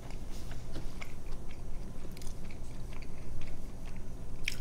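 Close-miked chewing of a bone-in chicken wing: a run of small irregular mouth clicks and smacks, with a louder smack near the end.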